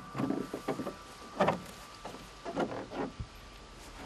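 A handful of irregular soft knocks and rubbing noises as a fibreglass racing kayak is carried on the shoulder and lowered toward the grass.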